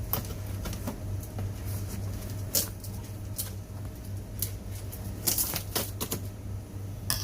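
A cardboard parcel and its packaging being pried open and handled: irregular clicks, crinkles and scrapes, with a cluster of sharper crackles about five seconds in, over a steady low hum.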